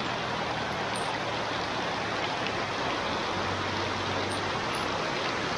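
Heavy rain pouring down steadily, an even hiss of falling water.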